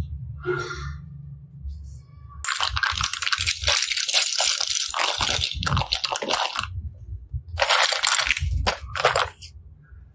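Hard plastic toys clattering and rattling as a hand rummages through a pile of them: clear plastic capsules, small clear plastic boxes and plastic linking cubes. The clicking comes in two spells, a long one from a couple of seconds in and a shorter one near the end.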